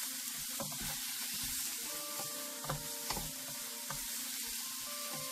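Chopped tomatoes, onions and green chillies sizzling steadily in hot oil in a non-stick frying pan while being stirred with a wooden spatula, which knocks against the pan a few times.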